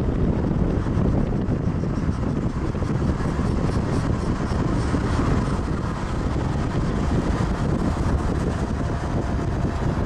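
Two Canadian Pacific diesel freight locomotives passing close by, a steady heavy rumble, followed by the start of a string of covered hopper cars. Wind buffets the microphone throughout.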